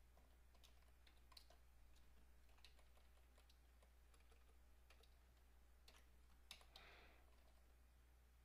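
Faint computer keyboard keystrokes and clicks, scattered and irregular, over a low steady hum.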